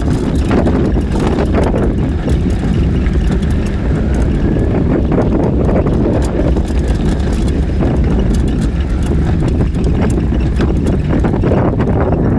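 Off-road vehicle driving over a rocky gravel track: a steady low rumble of engine and tyres, with many small clicks and crackles of stones under the wheels, and wind on the microphone.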